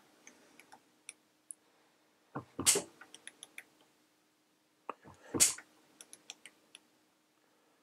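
Insulated slipper-type torque wrench (Laser, 3/8-inch drive) slipping twice at its 10 Nm setting while pulled on a torque tester. Each slip is a sharp crack and a short clunk, followed by a few light ticks.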